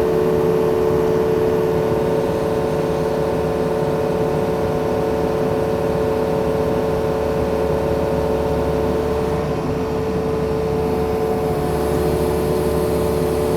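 Diesel engine of a Yanmar machine running steadily, with a constant droning tone over a low rumble.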